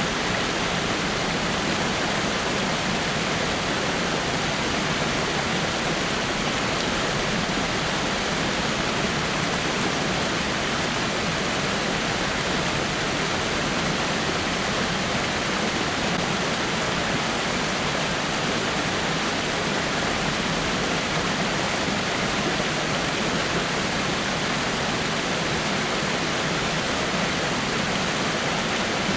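Small waterfall pouring over rocks: a steady, even rush of falling water.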